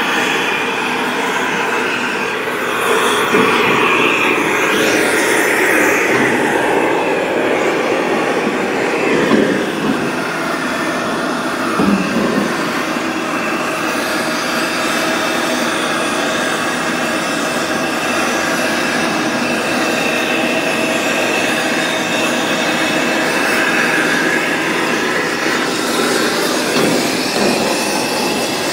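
Oxy-acetylene torch flame burning steadily against galvanized steel, a continuous loud hiss with several steady tones running through it, as it melts off the zinc coating.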